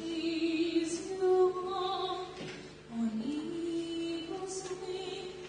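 A woman singing solo, a slow melody of long held notes with a rising slide in the middle.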